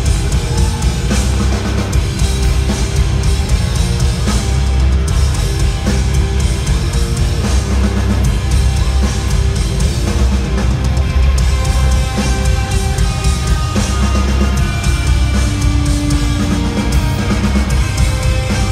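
Rock band playing live at full volume: distorted electric guitars, bass and a drum kit, heard from the crowd.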